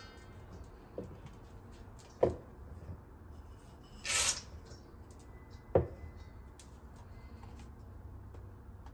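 Ingredients being added to a stainless-steel mixing bowl: a few sharp knocks as jars and containers are handled and set down, and a short hiss about four seconds in as a dry ingredient, likely salt, is shaken in from its container.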